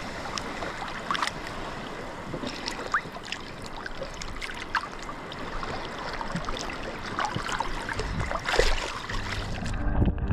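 Seawater sloshing and splashing close around a camera as a snorkeler enters the water and swims, with many small crackles and ticks.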